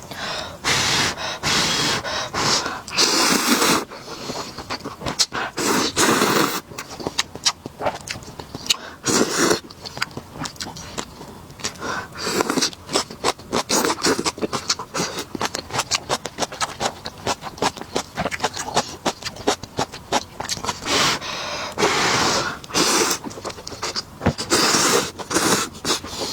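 Kitchen preparation noises: a busy run of scrapes, rustles and sharp clicks, with short noisy bursts of up to about a second scattered throughout.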